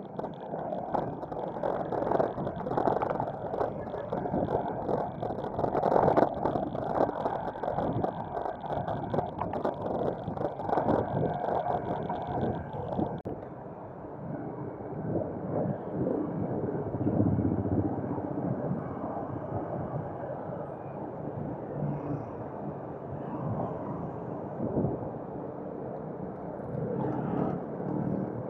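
Wind rushing over the microphone, with road noise, while cycling. The higher hiss cuts off suddenly about halfway through, leaving a lower rush.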